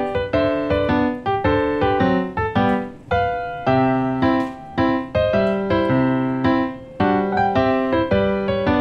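Background piano music: a steady run of struck notes, each fading away.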